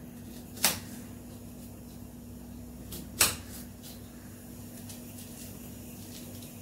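Small kitchen knife slicing a red onion directly on a bare countertop: two sharp knocks of the blade hitting the counter, just after the start and about three seconds in, with a few fainter ticks between. A steady low hum runs underneath.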